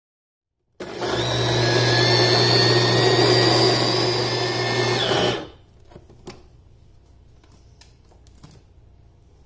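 Electric mini food chopper running at full speed, grinding the cooked chicken and chana dal shami kabab mixture into a paste: a steady motor hum and whine that starts about a second in and stops suddenly after about four and a half seconds. A few light clicks follow as the bowl is handled.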